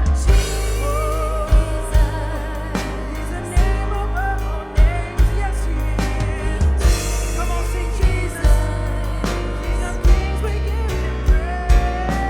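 A live worship band plays a song with singing. A sung melody with vibrato rides over a steady bass line, with drum hits marking the beat.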